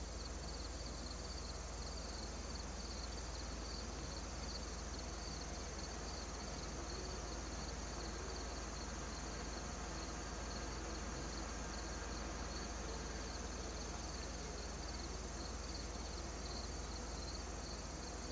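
Steady chorus of insects: a continuous high, finely pulsing trill, with a low hum beneath it.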